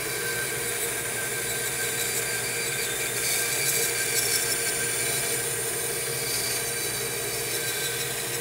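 Rikon bandsaw running, its blade cutting through a thick walnut block: a steady motor hum with a sawing hiss that gets a little louder for a few seconds in the middle.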